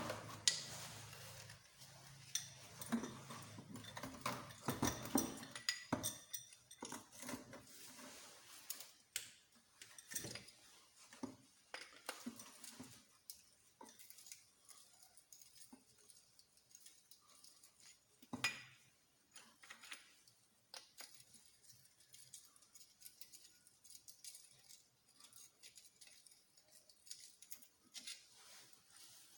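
Small metal engine parts and hand tools clinking and tapping as they are handled, with irregular clicks that thin out after the first dozen seconds and one louder knock about 18 seconds in.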